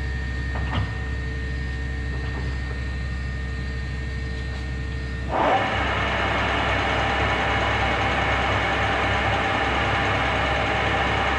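Monarch 610 Hydro-Shift lathe with its motor humming steadily and a small click about a second in. About five seconds in the spindle engages with a sudden clunk, and the chuck and headstock gearing spin up and run on with a louder steady machine noise.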